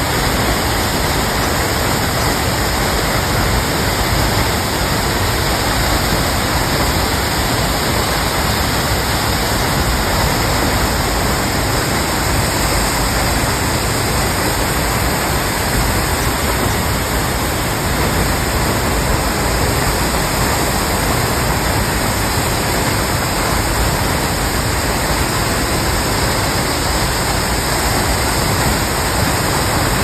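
Tall waterfall plunging down a cliff into a pool: a loud, steady rush of falling water that holds even throughout.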